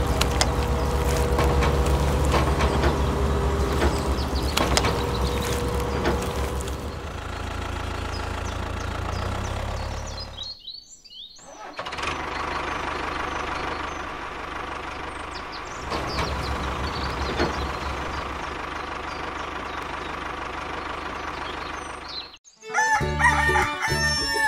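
Mini tractor running with an even low pulsing as it rolls the roller over the concrete, then steadier machine noise. Near the end the sound cuts off suddenly, and short animal calls over music follow.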